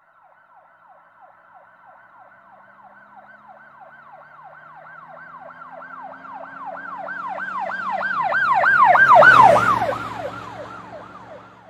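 Emergency vehicle siren on a fast yelp, each wail falling in pitch, about three a second. It grows steadily louder to a peak about nine seconds in, drops in pitch and fades, as a vehicle passing by with a low engine rumble under the siren.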